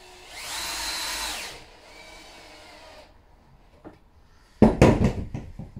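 Cordless 18V drill-driver driving a screw into a door hinge: the motor whines up in pitch, runs for about a second and drops as the screw goes home, then runs on more quietly. Near the end comes a quick clatter of several loud knocks, the loudest sounds here.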